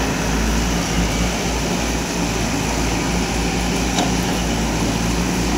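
Diesel engines of JCB backhoe loaders running steadily, over a constant rushing noise.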